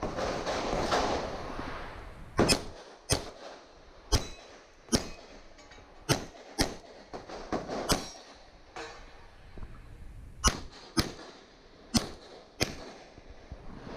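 A string of about a dozen gunshots at irregular intervals, often in quick pairs, as a competitor shoots a practical shooting stage. A rushing noise fills the first two seconds.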